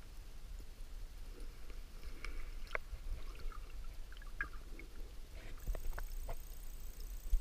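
Muffled sound of water moving around a camera held underwater in shallows: a low rumble with scattered small clicks and crackles. A faint steady high whine comes in a little past halfway.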